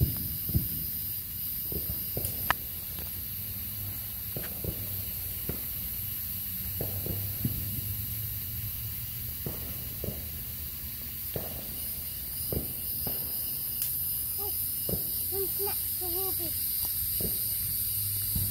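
Steady high-pitched chorus of night insects, with scattered footsteps and small knocks.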